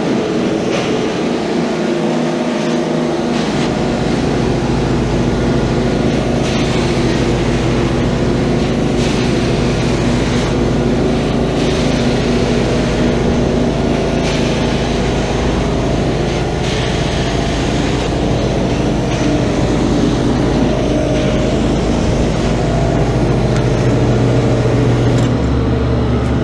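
Advance ET 700 portable carpet extractor running: the steady hum and whine of its vacuum and pump motors, with a deeper hum joining about three and a half seconds in. Over it, a rushing hiss of spray and suction swells and fades every second or two as the cleaning wand is worked across the carpet.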